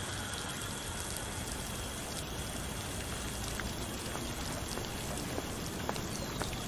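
Water spraying from a garden hose's pistol nozzle: a steady, even hiss like rain, with a few faint ticks.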